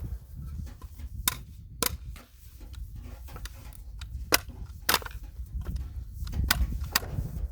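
Sharp metallic clicks in three pairs, the two clicks of each pair about half a second apart: the action of a Remington 7400 semi-automatic rifle being worked by hand while it is jammed.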